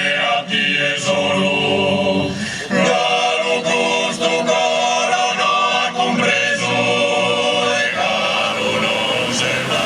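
Choir singing a Sardinian folk song unaccompanied, several voices in harmony.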